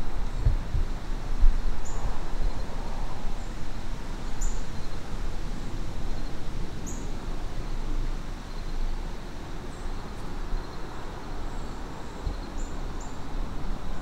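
Woodland ambience: an uneven low rumble under steady outdoor noise, with a small bird's short, high, falling chirp repeated every two to three seconds.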